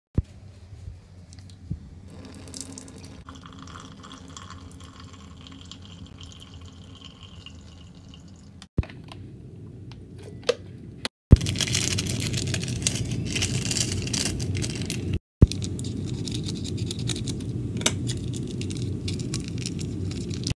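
Water in an electric kettle of noodles: a soft steady rush that turns much louder about eleven seconds in. It breaks off briefly at a few edits, with a few sharp clicks.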